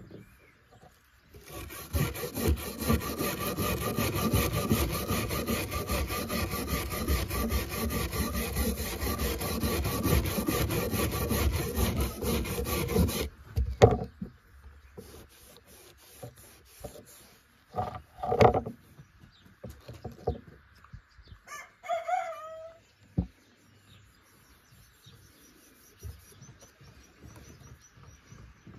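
Rapid, steady rubbing on wood for about twelve seconds that stops suddenly, followed by a few scattered knocks. A rooster crows briefly near 22 seconds.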